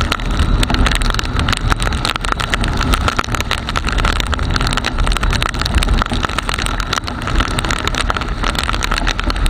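Motorcycle riding through heavy rain, heard through an action camera's sealed waterproof case: a steady, muffled rumble of wind and engine with a dense, rapid patter of clicks, typical of raindrops striking the case.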